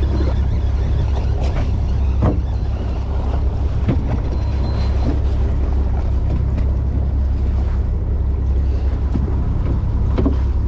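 Fishing boat's engine running with a steady low rumble, wind buffeting the microphone, and a few brief knocks about two and four seconds in.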